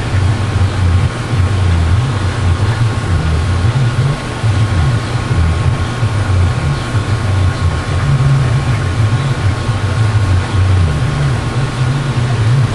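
Loud, uneven low rumble with a steady hum above it, like a running motor.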